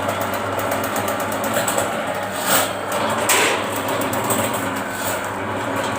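Electric drain-cleaning machine running steadily with a fast rattle as its spinning cable works through a clogged drain line, with two brief louder surges about halfway through.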